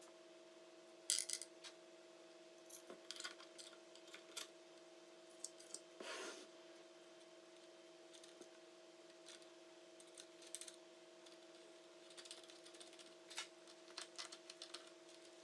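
Near silence with a faint steady hum, broken by scattered light clicks and taps of small hard objects being handled.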